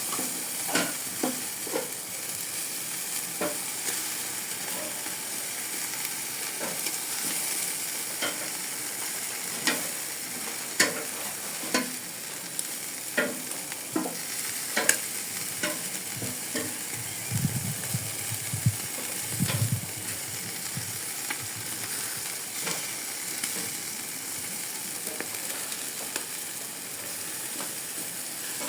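Chicken wings sizzling on an outdoor barbecue grill: a steady hiss with scattered sharp clicks and pops.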